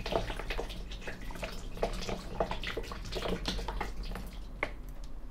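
Hot water poured from an electric kettle into an opened malt extract can, trickling and splashing out of the can into a plastic fermenting bucket below, rinsing the leftover extract into the bucket.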